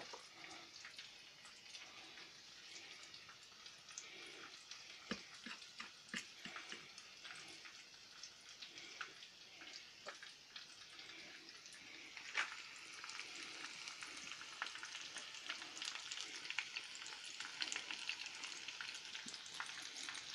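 Breaded chicken pieces frying in a pan of oil: a steady sizzle with scattered crackles and pops, getting louder about twelve seconds in.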